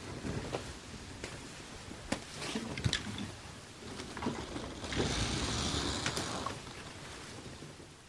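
Sail and rigging ropes shifting: scattered creaks and knocks, with a rustling rush of sail canvas about five seconds in that fades after a second or so.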